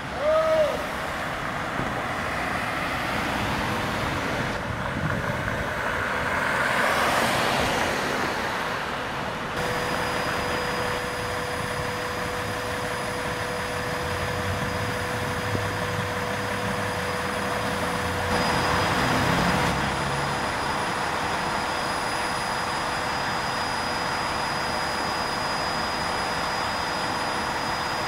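Street noise around idling fire engines and emergency vehicles: a steady engine hum with a constant whine, swelling twice as vehicles pass, about seven and nineteen seconds in. A short falling tone sounds right at the start.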